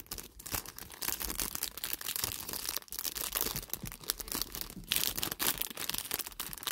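Small clear plastic bags of metal charms crinkling and crackling as they are handled.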